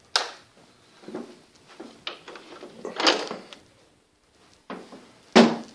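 Wooden closet door being handled, opened and shut: a short knock near the start, a longer clatter about three seconds in, and the loudest knock near the end.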